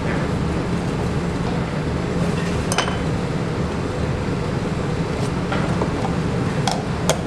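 A steady low hum of room machinery, with a few light clicks and taps from tools and a plastic container lid being handled on the work table, the loudest near the end.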